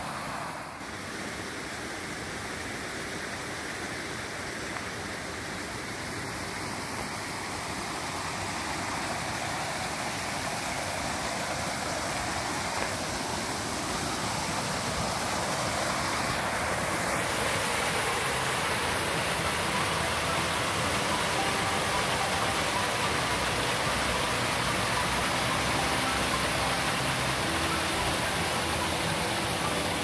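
Small woodland waterfall spilling over rock ledges into a pool: steady rushing water, growing louder as it is approached.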